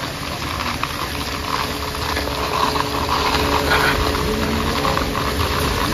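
A small engine running steadily, a continuous low hum with a faint steady tone and no changes in speed.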